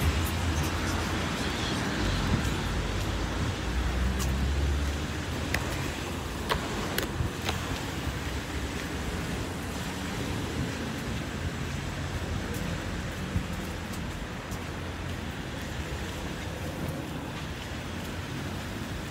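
Steady street traffic noise with a low rumble. A few sharp clicks come about six to seven seconds in.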